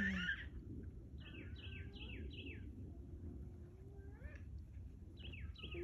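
A songbird singing: a quick run of five or six down-slurred whistled notes, about four a second, then a second run starting near the end.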